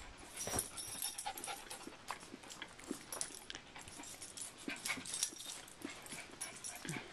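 A dog panting and moving about on a quilt, with many brief rustles and scuffs of the fabric.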